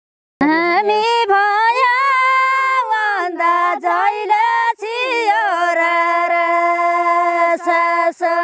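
A woman's unaccompanied voice singing a Thadi Bhaka folk song of far-west Nepal. After a brief gap the voice enters with gliding, ornamented turns, then holds one long drawn-out note through the latter half.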